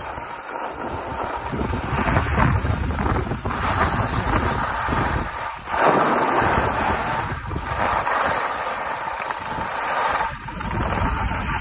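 Wind buffeting the microphone with a low rumble, over the hiss of skis sliding on snow that swells and fades every few seconds with the turns.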